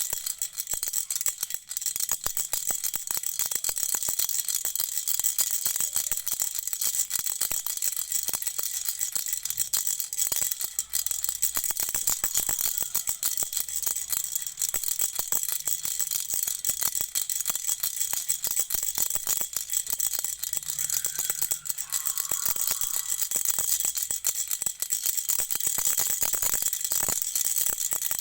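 A baby's toy rattle shaken steadily without a pause, a dense, rapid clatter.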